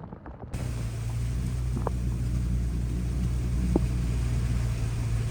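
Toyota FJ Cruiser's V6 engine running steadily at low revs, a low even drone that starts about half a second in, with a couple of faint ticks.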